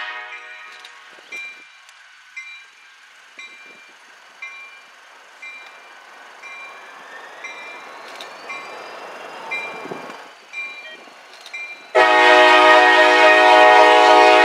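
Freight diesel locomotive approaching on street track, its bell sounding about twice a second. Near the end its air horn blows a long, loud blast that drowns everything else.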